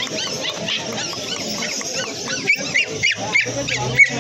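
Caged puppies yipping and whimpering in short, quick high calls, several a second, with one louder yelp near the end.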